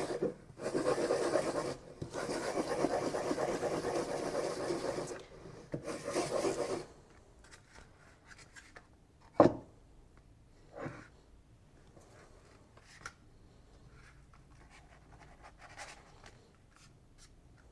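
A ball of cottage-cheese dough shaken and turned in a flour-dusted mug to coat it, a rough rubbing noise in three stretches over the first seven seconds. Then a sharp knock, a fainter one and a few light taps as the shaped syrniki are set down on a board.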